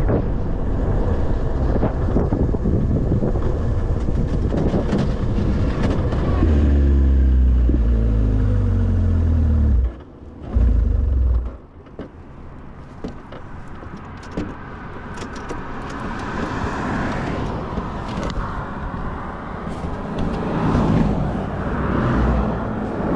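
1999 Kawasaki ZX-9R motorcycle's inline-four engine running and revving up in a rising pitch, then cutting out abruptly about ten seconds in, followed by a brief loud burst and a quieter, uneven noise. The owner suspects a bad fuel pump is making the engine die.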